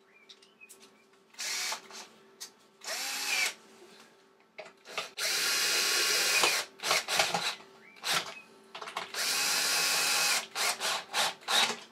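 Cordless drill-driver running in several short bursts, the longest about a second and a half, driving screws to refit the cover on an air compressor.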